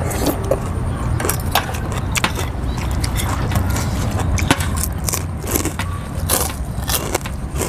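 Two people eating rice noodles in broth: slurping, chewing, and metal spoons and forks clinking on dishes in many short, irregular clicks, over a steady low rumble.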